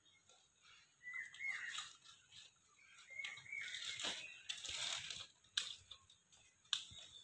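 A pug whimpering in short, high whines while begging for a biscuit, with a stretch of crunching, rustling noise in the middle and a few sharp clicks near the end.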